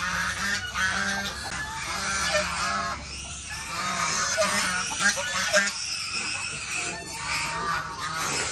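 A continuous chorus of high-pitched farmyard animal calls, many voices overlapping without a break.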